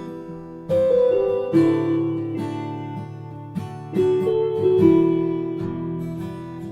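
Acoustic guitar strumming chords in an instrumental passage of a song, with no singing: a chord struck roughly once a second, each ringing out and fading before the next.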